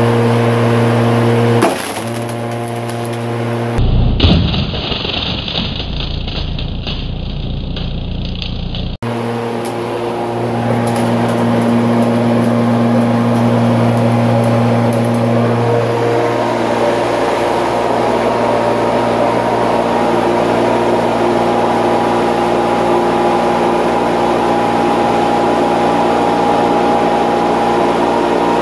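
Corded electric lawnmower motor and blade running with a steady whine. About four to nine seconds in there is a rougher, noisier stretch as the blade chews through paper.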